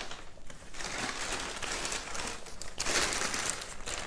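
Plastic bags of potting soil and manure rustling and crinkling as they are handled, loudest about three seconds in.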